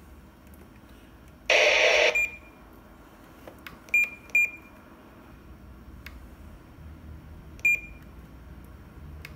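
GME TX3620 UHF radio beeping as its front-panel buttons are pressed: four short high-pitched key beeps. About one and a half seconds in comes a half-second burst of receiver hiss from its speaker, the loudest sound.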